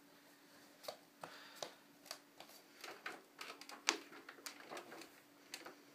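Irregular clicks and knocks of a hard plastic toy tow truck being handled, the loudest knock a little before four seconds in.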